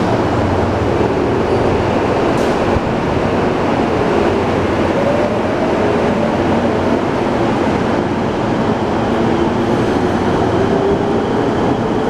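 Tokyo Metro Tōzai Line subway train running into an underground station platform: a loud steady rumble, with a faint whine coming in from about a third of the way through.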